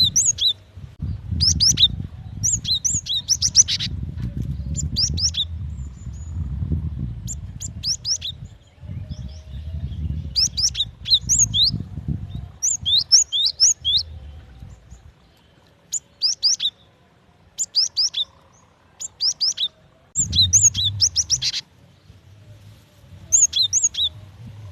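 Female cinereous tit (gelatik batu) calling: clusters of quick, high chirps repeated every second or so with short pauses, the call keepers use to lure a male into singing. A low rumble lies under much of it.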